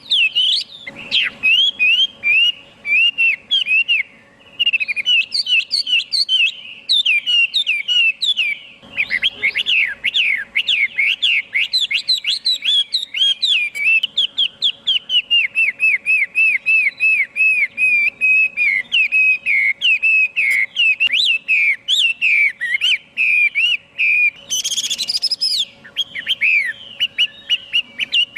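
Chinese hwamei singing a long, rich run of rapid whistled phrases, the notes sliding up and down with barely a pause. About 25 seconds in there is a brief, shriller, harsher burst.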